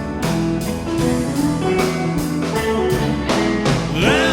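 Live rock band playing an instrumental passage between sung lines: guitar notes over bass and drum kit, with a steady beat.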